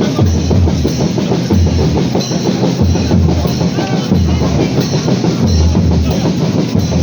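Loud music with drums: a deep bass drum beat about every second and a quarter, with snare and other percussion over it.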